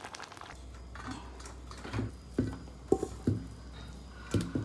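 Several light knocks and taps of kitchen utensils, loosely spaced through the second half, over a low steady hum that starts about half a second in.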